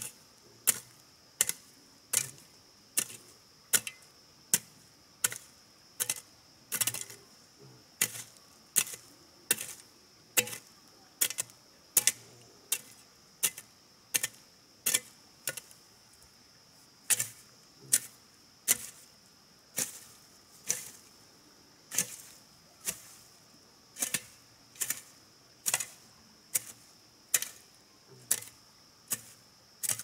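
Repeated sharp strikes of a hand tool at a steady pace, a little more than one a second, over a faint, steady high-pitched hum.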